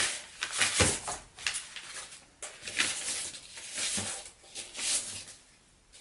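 A sheet of painted paper rustling and crinkling as it is lifted and handled, with a brush scrubbing across it, in a run of short rustles.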